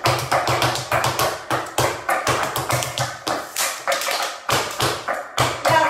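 Flamenco footwork (zapateado): fast, rhythmic heel and toe strikes of flamenco shoes stamping on the floor, several a second, with a couple of brief pauses near the end.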